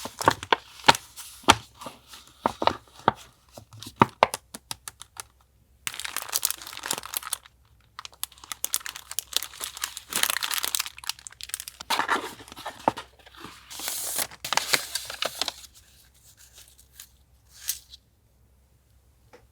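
Paper and sticker sheets being handled close up: a quick run of sharp clicks and taps for the first few seconds, then several separate bursts of paper tearing and crinkling.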